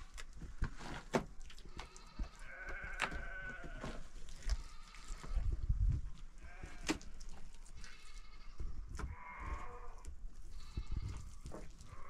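Herd of small livestock bleating: four or five separate bleats, each lasting about half a second to a second, with scattered sharp knocks between them.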